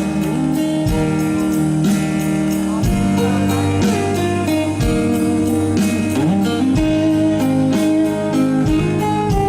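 A live band playing an instrumental break: a guitar melody over bass, with a kick drum beating about once a second.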